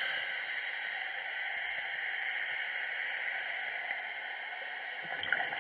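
Steady underwater hiss, with a few small clicks near the end.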